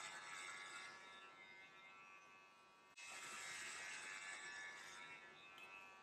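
Electric hair clippers buzzing faintly as they shave hair from a head. The buzz gets suddenly louder about three seconds in and tapers off near the end.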